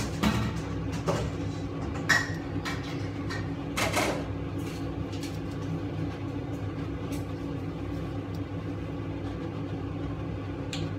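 Steady mechanical hum of a running kitchen appliance, with a few light knocks and clinks in the first four seconds.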